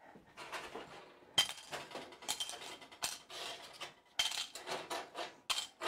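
Homemade oil-free baked corn chips rattling and crackling as they are handled and tipped into a bowl, with sharp clinks and clatters of dishes and kitchenware; the dry, brittle rattle is the sign that the chips are crispy.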